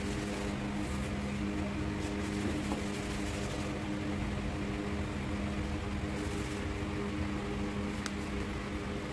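A steady machine hum with a low, held drone. A faint hiss comes and goes over it.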